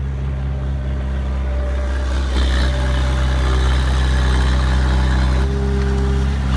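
Heavy diesel engine of earthmoving machinery running steadily at close range. It gets a little louder, with added hiss, about two seconds in.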